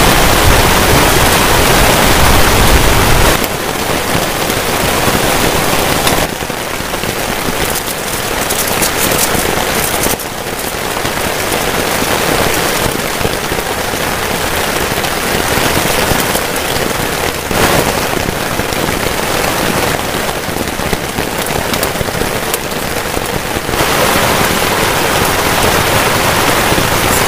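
Heavy rain falling steadily on a tarp and the ground around it, a loud, even hiss whose level steps up or down abruptly several times.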